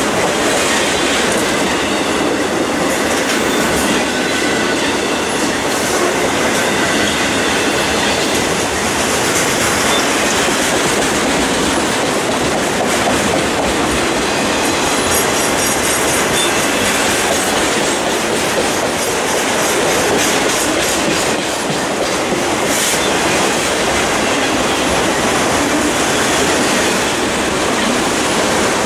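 Freight train of autorack cars rolling past close by: steel wheels on rail, with steady clickety-clack over the rail joints. A thin, high wheel squeal sounds through the first several seconds.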